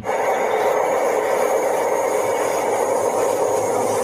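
A train sound effect: a steady train running noise that starts abruptly and holds level.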